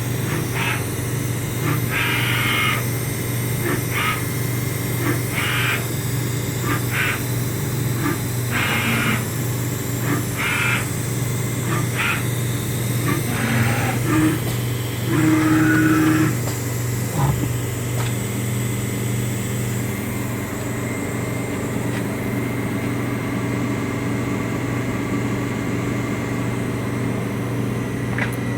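Dental CNC milling machine running after being started, with a steady low hum. Over the first half come short harsh rasping sounds about once a second, the loudest near the middle, and then only the steady hum.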